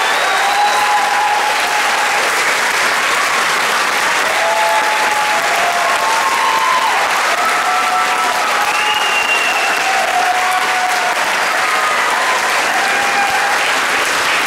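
Audience applauding steadily, with short cheers and whoops heard over the clapping.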